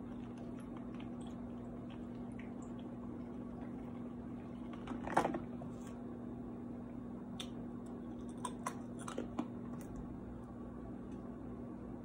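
Drinking from a plastic water bottle: small sips and swallows, with one louder sound about five seconds in, then a few soft clicks and mouth sounds over a steady low hum.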